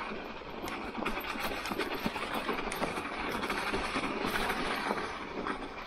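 Mountain bike rolling over fresh snow, picked up by a handlebar-mounted camera: the tyres crunch and crackle through the snow over a continuous clatter of small rattles from the bike.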